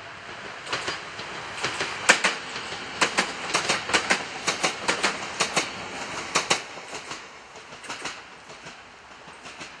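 Passing train's wheels clacking over rail joints: a quick run of sharp clicks over a steady rushing noise, building in the first couple of seconds and fading away near the end.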